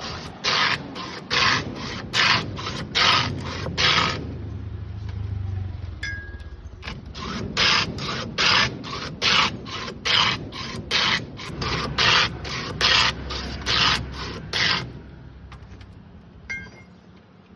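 Ice being scraped by hand in rhythmic runs of short strokes, about two and a half a second: a first run that stops about four seconds in, and a second longer one from about seven seconds to near the end.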